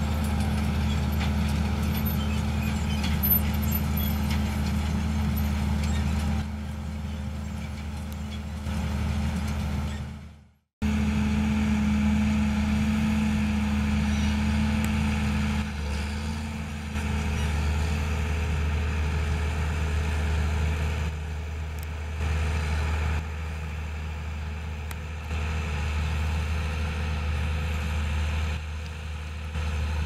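John Deere tractor's diesel engine running steadily under load as it pulls a corn planter through the field. The sound cuts out for a moment about ten seconds in, and the level shifts a few times.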